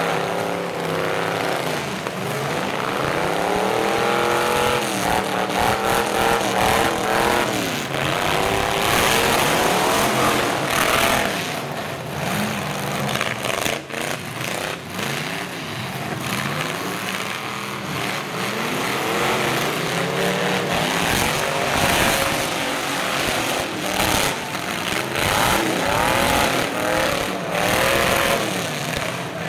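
Several full-size pickup trucks' engines revving hard, again and again, their pitch climbing and falling as the trucks ram and push one another, with scattered sharp crunching impacts of metal on metal.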